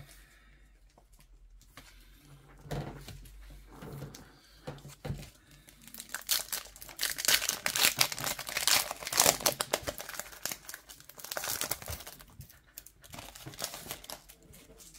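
Foil wrapper of a Topps Star Wars trading card pack being torn open and crinkled by hand. The crackling is loudest about halfway through, with lighter rustling of the pack before and after.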